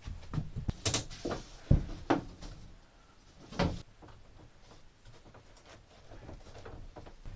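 Thin 5 mm luan plywood underlayment sheet being slid and worked into place on a plywood subfloor: scraping with a handful of knocks and thumps in the first few seconds, the loudest a low thump a little under two seconds in, then quieter handling.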